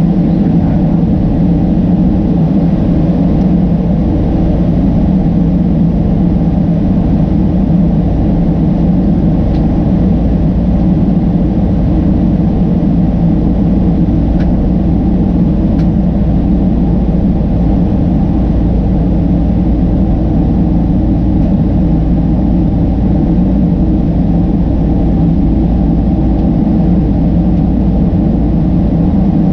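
Steady, deep cabin drone of a Boeing 767-300ER in flight, heard inside the passenger cabin: the jet engines and rushing airflow, running evenly without change.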